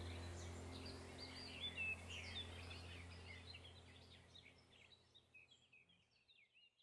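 A chorus of small birds chirping rapidly over a low steady hum, the whole sound fading out gradually to nothing by the end.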